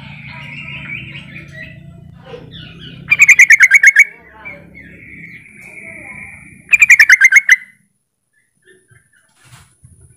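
Yellow-vented bulbul (trucukan) calling: two loud bursts of about nine quick chattering notes each, roughly three and a half seconds apart. This is the call used to lure other bulbuls into answering.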